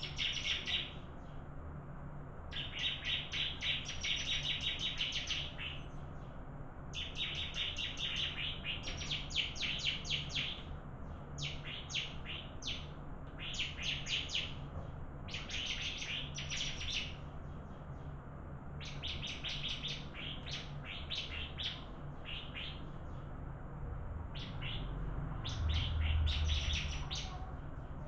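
Bar-winged prinia (ciblek) singing in repeated bouts of rapid, high chipping notes, each bout lasting a second or two with short pauses between them.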